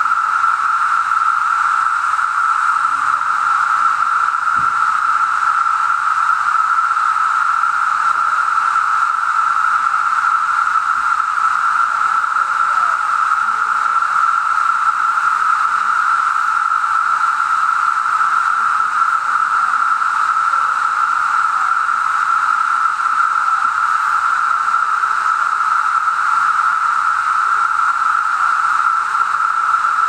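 Chorus of 17-year periodical cicadas: a loud, steady drone of many insects singing together, holding one even pitch without a break.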